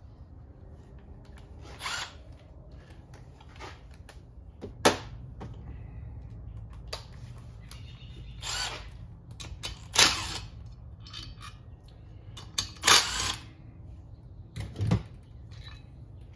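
Hand tools and small parts handled on a metal workbench while valve stem seals are fitted to a 6.1 Hemi cylinder head: a string of short clinks, clacks and scrapes, a few of them sharp and loud, over a steady low hum.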